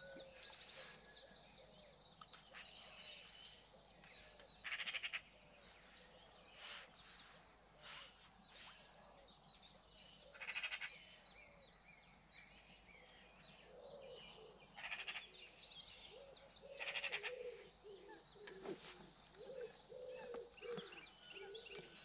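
Early-morning birdsong: many small birds chirping, a few brief loud rattling trills, and low repeated calls in the second half.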